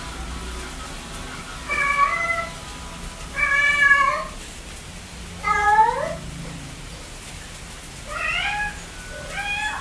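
Domestic cat meowing repeatedly: five separate meows a second or two apart, one of them rising in pitch.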